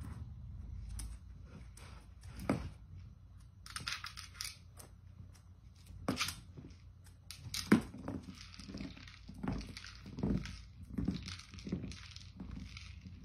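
Small dog pushing a plastic wobble ball toy over a wooden floor with its nose: irregular knocks, clacks and rattles as the toy tips and rolls. The sharpest clacks come about two and a half and seven and a half seconds in, and the knocking comes faster in the second half.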